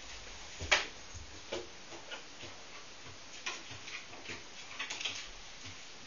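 Irregular light clicks and taps on bare wooden floorboards from a dog's claws and a person's footsteps as they move, with one sharper click about a second in.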